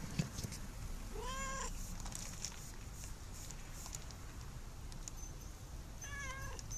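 Orange tabby cat meowing twice, about five seconds apart; each meow rises and falls in pitch.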